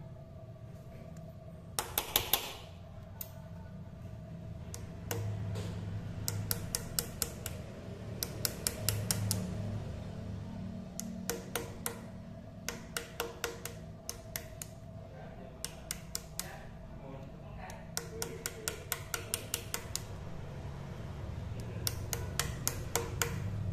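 A pointed steel punch tapping on a broken bolt's stub, light metal clicks in quick bursts of several at a time with short pauses between, working the broken bolt round to unscrew it.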